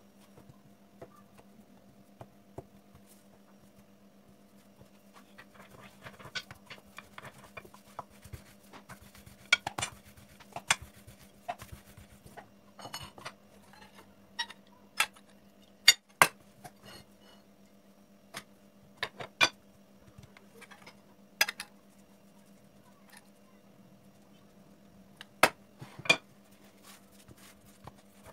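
Irregular clinks and knocks of kitchenware, a ceramic plate and an enamel pot, being handled and set down on a granite countertop, the sharpest a pair about halfway through and another pair near the end, over a steady low hum.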